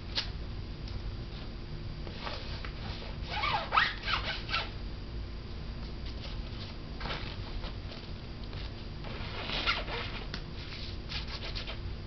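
A pet lory chittering in short, scratchy bursts, one cluster about four seconds in and another near ten seconds.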